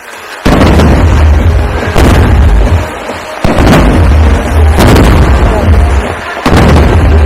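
Aerial firework shells bursting overhead: five loud booms roughly every one and a half seconds, each followed by a long rumbling, crackling tail.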